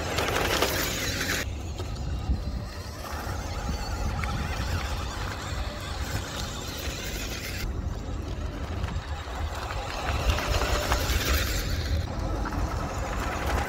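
1:16 scale RC dump truck driving over loose gravel: a steady crunching of the tyres on the stones, with the truck's small motor and a heavy low rumble underneath.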